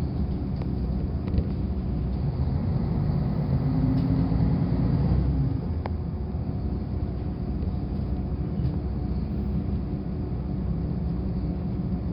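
Diesel railcar running along the line, heard from inside the passenger cabin: a steady low rumble of engine and wheels on rail, swelling slightly about four seconds in, with an occasional faint click.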